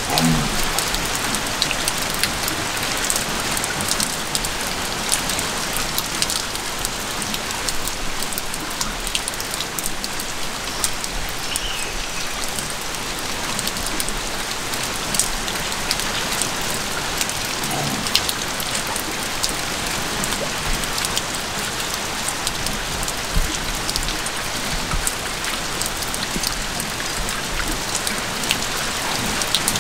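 Steady hiss of rain, with many scattered drops ticking sharply throughout.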